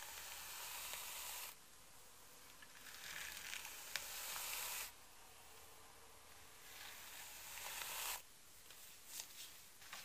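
A hairbrush drawn slowly down through long straight hair in three long strokes, each a soft hiss that swells and cuts off as the brush leaves the ends, followed by a few shorter, scratchier strokes near the end.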